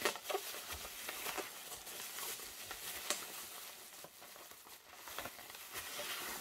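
Bubble wrap crinkling and rustling as hands unwrap it from a boxed model train coach, in quiet irregular crackles.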